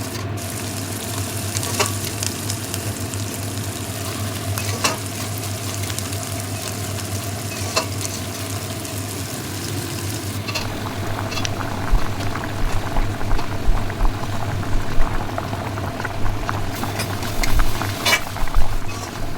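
Food frying in a pan with a steady sizzle and a few sharp clicks. From about halfway it turns busier, with irregular scraping and knocking as the food is stirred.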